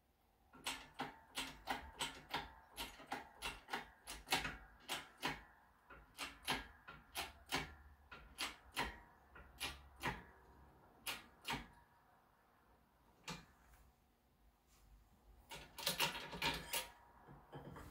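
Small steel bars and a steel linkage part clicking and knocking against the steel bed of a bench press as they are shifted into place under the ram. There are quick, irregular light knocks, about two or three a second for most of the time, then a few scattered ones and a short burst near the end.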